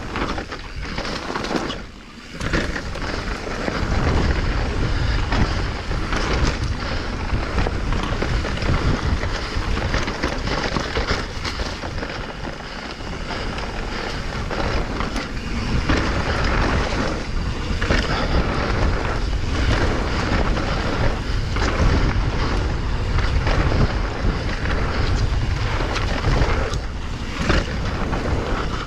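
Mountain bike descending singletrack at speed: wind buffeting the microphone over the knobby tires rolling on dirt and rocks, with many short knocks and rattles as the bike takes trail bumps.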